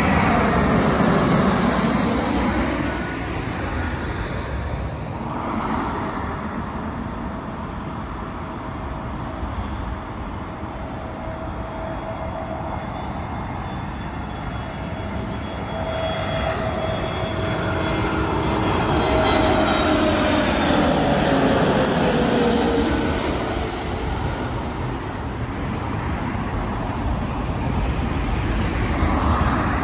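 British Airways Airbus A320-family airliner passing low overhead on approach to land, its jet engine noise loudest at the start and falling in pitch as it goes by. The engine noise then eases and swells again as another approaching airliner comes in, mixed with cars passing on the dual carriageway.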